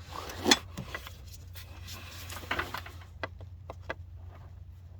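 Hand tools knocking and clicking on metal as bolts are worked in a car's engine bay: one sharp clank about half a second in, then a few separate clicks a little past the middle.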